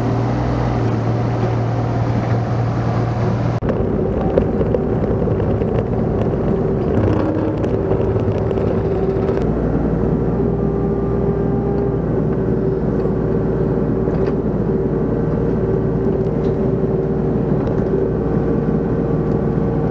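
Kubota compact excavator's diesel engine running steadily under work. About three and a half seconds in, the sound changes abruptly to a closer, steady engine tone.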